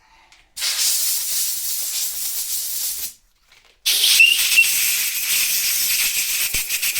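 Two long blasts of hissing spray clearing cutting oil and swarf out of a freshly tapped thread hole in a cast iron engine block, the second with a brief whistle near its start.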